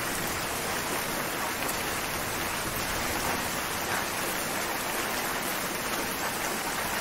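Steady rain falling, a dense, even wash of drops with no thunder.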